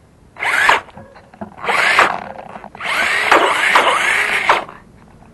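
Small electric motor and geartrain of a 2WD remote-control truck on a brushed XL5 speed controller, revved in three throttle blips whose whine rises and falls in pitch; the third, about three seconds in, is the longest.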